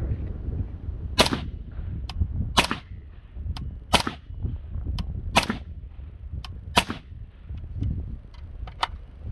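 Suppressed 5.56 rifle fired five times at a slow, even pace, about one shot every second and a half. Each shot is followed about a second later by a fainter sharp click.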